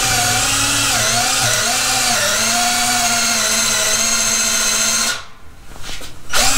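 SnapFresh 20V cordless drill on speed 2 boring a 5/16-inch hole into a wooden beam with a twist bit: a steady motor whine that dips a little in pitch under load, stops about five seconds in, then spins up again near the end.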